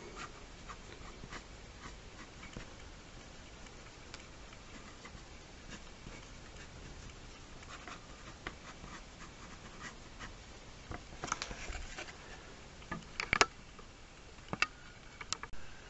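Pen scratching on paper as quick short hatching strokes are drawn, with a few sharper clicks near the end.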